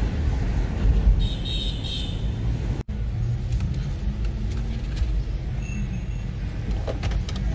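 Steady low road and engine rumble inside a moving car's cabin. About a second in, a short high-pitched chirp sounds twice. The rumble cuts out for an instant a little under three seconds in, then carries on.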